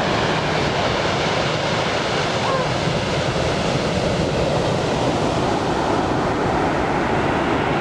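Steady rush of ocean surf breaking on the beach, mixed with wind buffeting the microphone.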